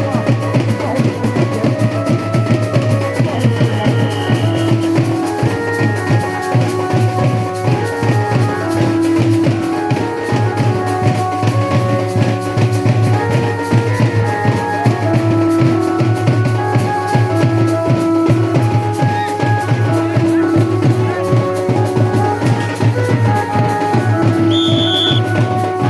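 Loud music: fast, dense drumming with a melody of held notes playing over it throughout.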